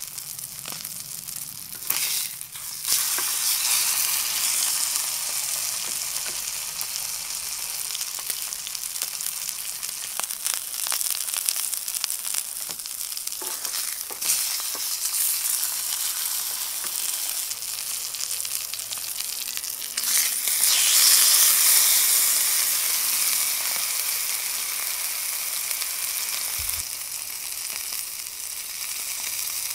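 Ribeye steak sizzling as it sears in a hot frying pan, a steady crackling hiss that swells louder about 2 seconds in and again about 20 seconds in.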